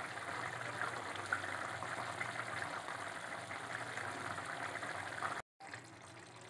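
Curry boiling hard in a steel kadai, the thin tamarind gravy bubbling and popping steadily over a low hum. About five and a half seconds in, the sound cuts out for a moment and comes back quieter.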